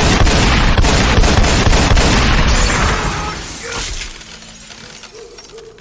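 Loud movie blast sound effect: a sustained boom packed with rapid sharp cracks, dying away about three to four seconds in.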